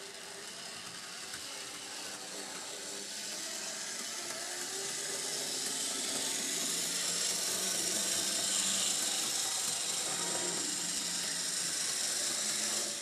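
Model tram running on 00/H0 track, its old Bachmann PCC 12-volt DC motor and gears whirring steadily with wheel-on-rail rumble. It grows steadily louder as the tram comes closer.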